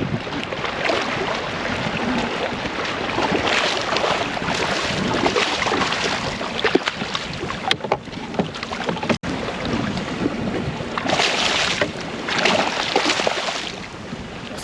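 Water splashing as a hooked redfish fights at the surface beside a kayak, over wind noise on the microphone. Two louder bursts of splashing come near the end.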